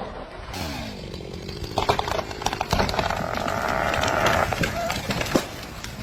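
Chainsaw running and cutting into wood, its pitch falling in the first second. From about two seconds in there is a run of sharp cracks and knocks.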